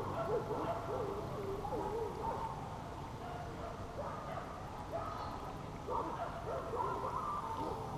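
A distant voice calling out in drawn-out, wavering cries, on and off, heaviest near the start and again near the end.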